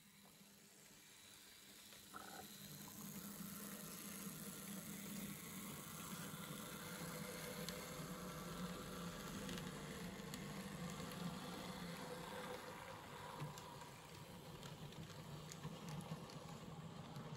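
Small electric motor of a model locomotive running, a steady low hum, growing louder from about two seconds in as the train comes closer, with a few faint clicks from the running gear on the track.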